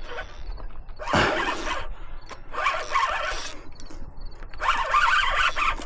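Fishing reel buzzing in three bursts of about a second each while a hooked fish is fought on the line.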